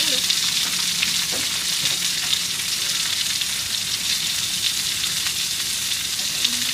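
Duck lạp xưởng sausages sizzling in a pan of coconut water as it cooks down: a steady frying hiss with small scattered crackles.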